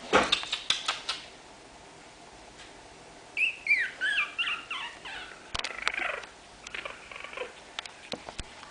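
Three-week-old chihuahua puppies squeaking and whimpering as they play, a quick run of high squeaks that fall in pitch about three and a half seconds in and a few fainter ones later, with light scattered clicks.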